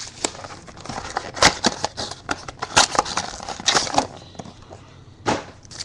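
Cardboard trading-card mini box being handled and opened by hand: scattered taps, knocks, scrapes and crackling of cardboard and wrapper.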